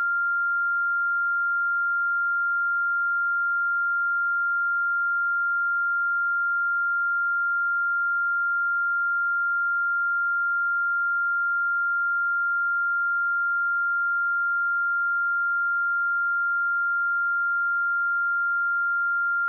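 A single steady 1394 Hz sine-wave test tone, a pure high-pitched beep-like tone held at constant pitch and level.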